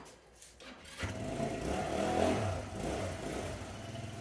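Motor scooter engine starting about a second in, then running at a low throttle, rising briefly in revs near the middle.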